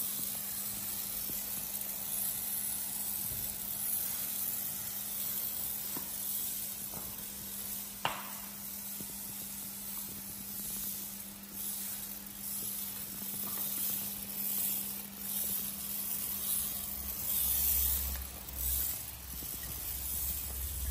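Hand-pump pressure sprayer hissing as it mists cleaning liquid onto a car's bumper, in several short bursts later on. A single sharp click about eight seconds in.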